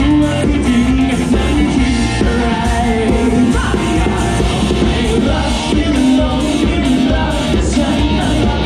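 Live band playing a song: a woman singing into a microphone over electric guitar and a drum kit.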